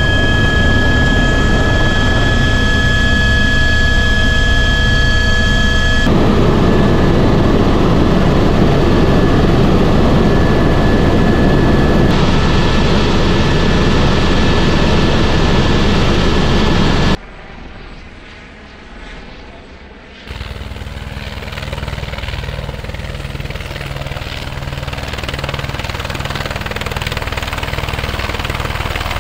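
Helicopter in operation: first a steady turbine whine with rotor noise heard inside the cabin, then loud engine and rotor noise in flight. The sound drops away sharply about seventeen seconds in. About three seconds later it returns as helicopter rotor noise with a low, even pulse, growing louder toward the end.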